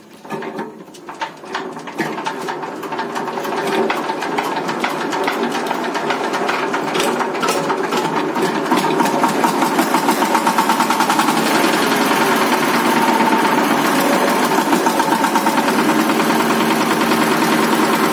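Single-cylinder diesel engine of a walk-behind power tiller coming to life and then running with a fast, steady clatter. It builds up over the first couple of seconds and then holds a constant speed.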